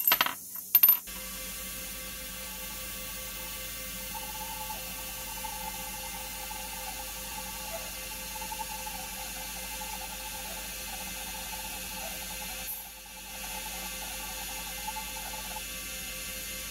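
Metal lathe running steadily while a twist drill bores into the end of a steel bolt under a stream of cutting fluid: a constant machine hum with a higher cutting note from about four seconds in until near the end, and one short lull about two-thirds through. A few clicks sound at the very start.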